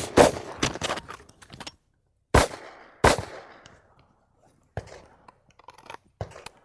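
A final shot from an AR-style carbine as it runs dry on an empty magazine. After a short gap, two pistol shots follow about 0.7 s apart, each with a rolling echo, and then a few light clicks and knocks of the weapons being handled.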